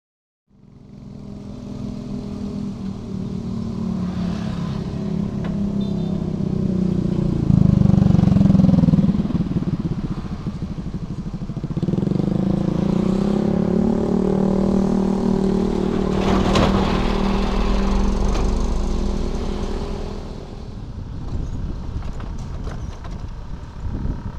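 Small motorcycles riding across the rails at a level crossing one after another, engines rising and falling in pitch as they pass, loudest about eight seconds in. A brief clatter about sixteen seconds in.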